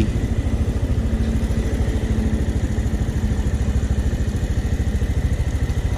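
Motorcycle engine idling with a steady, even low pulse.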